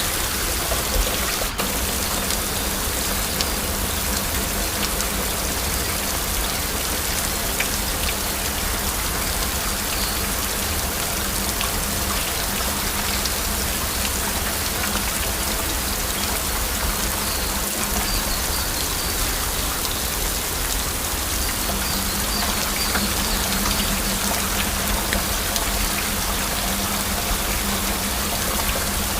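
Heavy rain falling steadily, with a dense patter of individual drops.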